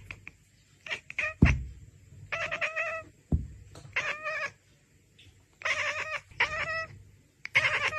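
A domestic cat meowing over and over, about six short pitched calls each roughly half a second long. Two low thumps come between the calls, one about a second and a half in and one just past three seconds; the first is the loudest sound.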